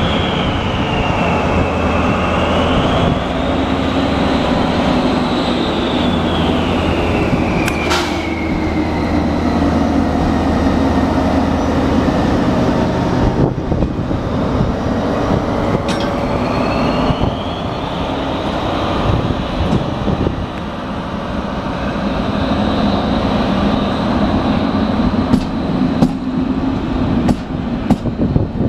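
DB class 218 diesel-hydraulic locomotive's V12 diesel engine pulling a rake of coaches slowly past, a steady low drone with a high whine that falls about halfway through and rises again. Several sharp clicks of wheels over rail joints come near the end as the coaches pass.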